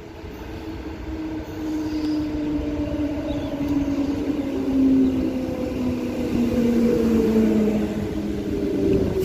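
Transperth A-series electric multiple-unit train pulling into the platform and slowing, its traction motors whining in a slowly falling pitch that grows louder as it draws near.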